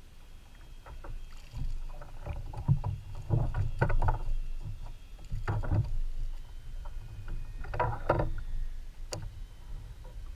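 Irregular water splashes and knocks on a fishing kayak, coming in three louder clusters, with a single sharp click near the end.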